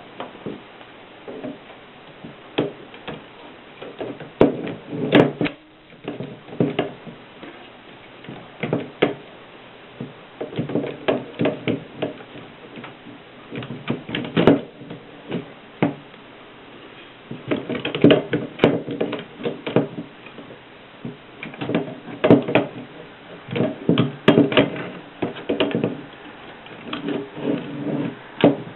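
Antique Mercedes typewriter being typed on: keys and type bars striking in irregular runs of keystrokes separated by short pauses.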